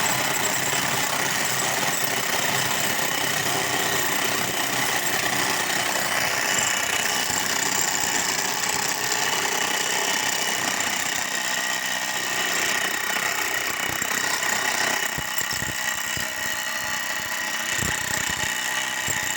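Construction machinery running steadily with a constant high-pitched whine over a mechanical drone, with a few low knocks in the last few seconds.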